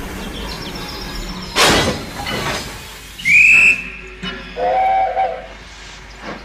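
Steam locomotive sounds: a sudden burst of hissing steam, then a short high-pitched whistle, then a lower whistle about a second later.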